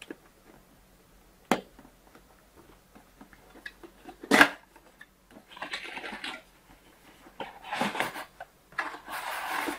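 Cardboard box packaging being opened and handled: a couple of sharp clicks, the loudest about four seconds in, then three stretches of rustling as the contents are moved about.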